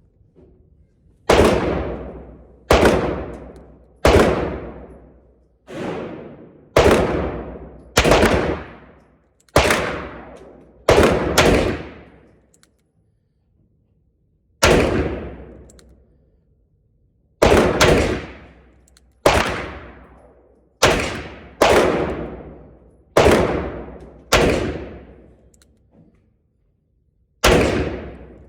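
Gunshots from a Nagant M1895 revolver: a string of about eighteen sharp reports at uneven intervals of roughly half a second to three seconds, each ringing out and fading over about a second.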